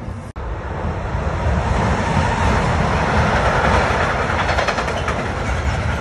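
Freight train wagons rolling past with a steady rumble, their wheels clicking over the rail joints, the clicking growing clearer from about halfway through. The sound drops out for an instant about a third of a second in.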